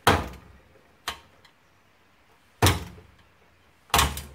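A hand striking the end of a screwdriver handle: three hard, sharp thumps and one lighter knock, driving the blade into a stubborn screw head in an oil heater's plastic housing.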